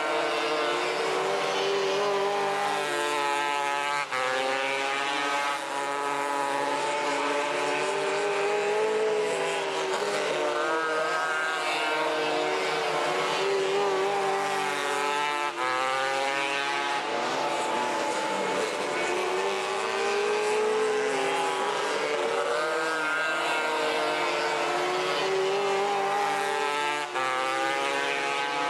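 Several 270cc micro sprint engines racing together. Their overlapping notes rise and fall over and over as the cars accelerate down the straights and lift for the turns.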